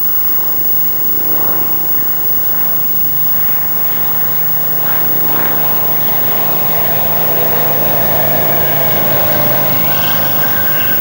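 Engine and propeller drone of a Foxbat light aircraft flying low past, growing louder as it comes close and loudest about two-thirds of the way through.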